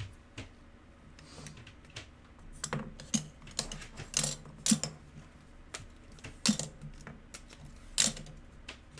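Hard plastic trading-card holders clicking and clacking against each other as a stack of cased cards is shuffled through by hand, in short, irregular sharp clicks.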